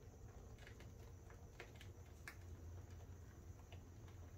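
Near silence: a faint low hum and a few light, scattered clicks from an HO scale Walthers Proto GP20 model locomotive running across the turnouts of a double crossover with powered frogs.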